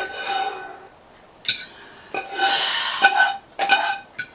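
Metal cutlery scraping and clinking against plates and dishes while people eat, with a few sharp clinks about one and a half, three and four seconds in.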